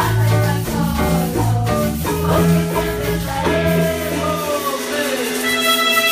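A school class band playing a song live: students singing over drum kit, bass guitar and keyboards. Near the end the bass and drums drop out and a section of melodicas comes in with held notes.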